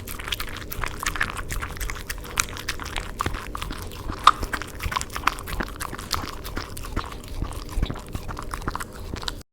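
A puppy eating cream pasta: chewing and mouth clicks coming quick and irregular, with one sharper click about four seconds in.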